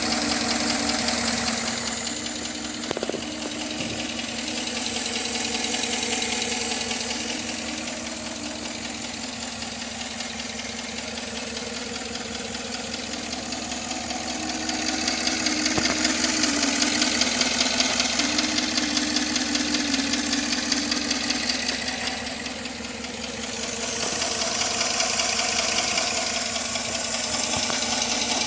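Chevrolet Tahoe V8 engine running with a fast, even ticking or tapping in it: still noisy even though its lifters have just been replaced.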